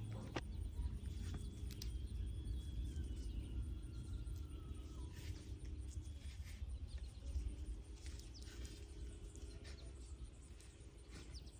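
Quiet garden ambience: a low wind rumble on the microphone, faint bird calls, and soft scattered rustles and knocks from carrots being handled and pulled from the soil.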